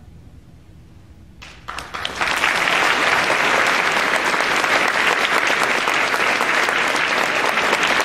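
Audience applause breaking out after a brief hush, about a second and a half in, growing within half a second and then holding steady.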